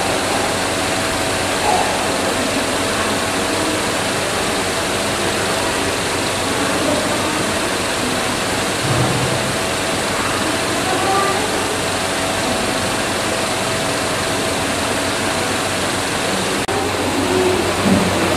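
Steady machine drone with a faint constant hum, and faint distant voices now and then.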